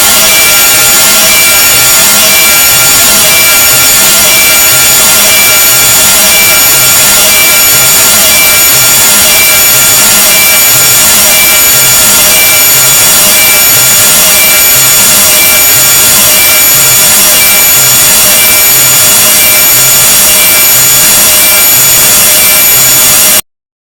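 Deliberately grating noise sound effect at very high level: a dense harsh hiss layered with steady high whistling tones and a rhythmic low pulse about one and a half times a second, cutting off suddenly near the end.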